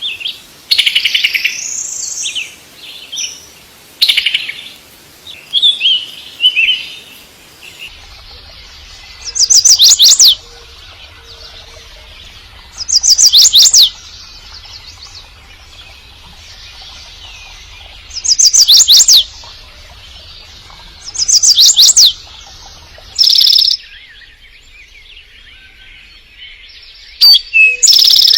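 A bird's loud chirping calls, the kind a male uses to call a mate. Quick varied chirps and trills run for the first few seconds, then come loud calls about a second long, each a cluster of quick sweeping notes, repeated every three to five seconds.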